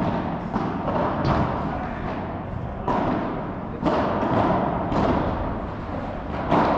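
Padel ball being struck back and forth with padel rackets during a rally. It gives sharp pops about once a second, and each pop rings on in the echo of a large indoor hall.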